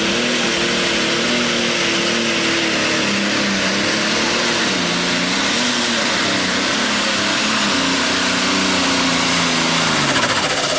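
Light Pro pulling tractor's turbocharged diesel engine at full throttle dragging a weight sled, with a high steady turbo whistle over the engine. The engine note wavers through the pull and falls near the end.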